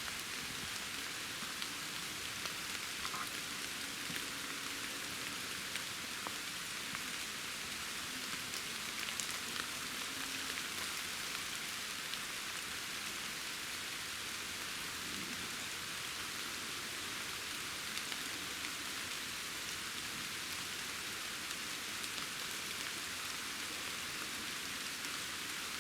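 Steady rain pattering on leaves and the surrounding woods, an even hiss with occasional faint drop ticks.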